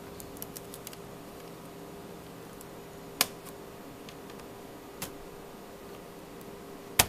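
Plastic trim panel of an Acer TravelMate 4060 laptop being pried up with a flathead screwdriver, its clips popping loose with sharp clicks: a few small ticks near the start, then single louder clicks about three and five seconds in and a loud one at the very end.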